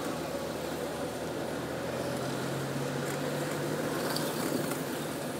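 Car running at low speed, heard from inside the cabin: a steady engine hum with road noise.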